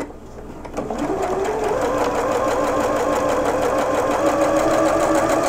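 Electric sewing machine stitching a seam through two fabric squares: it starts about a second in, speeds up with a rising hum, then runs at a steady fast pace and stops near the end.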